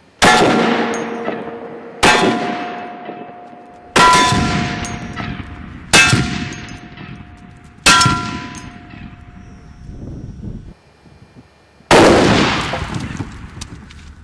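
.50 BMG rifle fired five times about two seconds apart with frangible bullets. Each shot is followed at once by a steel target plate clanging and ringing on as it fades. After a brief gap a sixth shot comes near the end, this one without the ringing.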